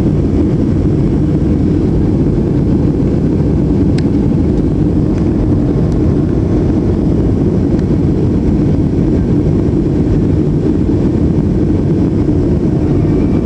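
Passenger jet cabin noise during the climb after takeoff: the steady, loud low rumble of the engines and rushing air heard through the fuselage, with a faint click about four seconds in.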